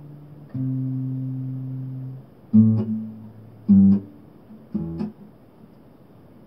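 Guitar music ending: a held chord, a fresh chord about half a second in, then three plucked chords about a second apart. The last fades out a little after five seconds in.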